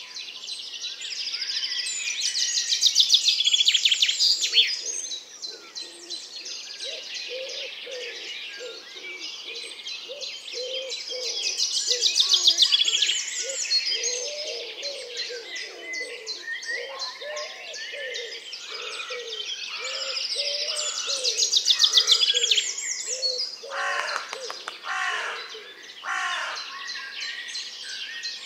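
Woodland bird chorus: a Eurasian wren sings its loud, rapid trilling song three times, while a common wood pigeon coos low, a song thrush repeats short phrases and a common chiffchaff calls.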